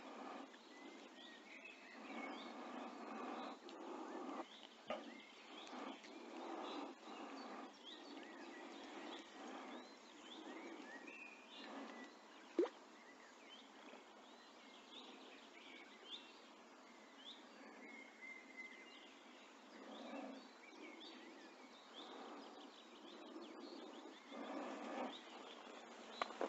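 Faint birdsong, many short chirps, over intermittent rustling close by as a small caught perch is handled among waterside plants, with one sharp click about halfway through.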